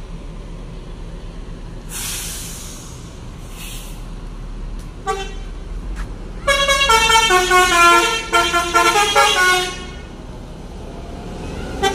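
Mercedes-Benz 1626 coach pulling out with its diesel running. There is a burst of air hiss about two seconds in. About six and a half seconds in, its multi-note telolet air horn plays a quick stepping tune for about three seconds and is the loudest sound.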